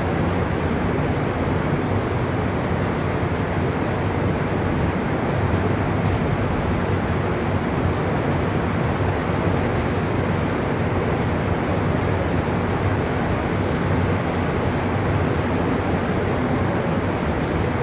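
Rushing floodwater: a steady, unbroken noise of flowing water.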